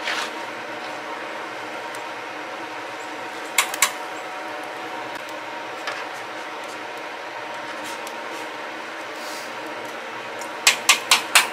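Small electric blower fan running steadily, forcing air into the wood fire of a 55-gallon drum maple sap evaporator. A skimmer knocks twice against the pan about three and a half seconds in, and taps five times in quick succession near the end as foam is skimmed off the boiling sap.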